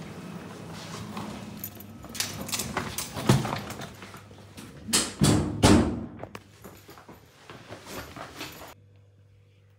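Hotel room door being opened and shut, with clunks, thuds and handling noise as someone walks into the room; the loudest thuds come about three and five seconds in. Near the end it cuts off suddenly to a quiet room with a faint steady hum.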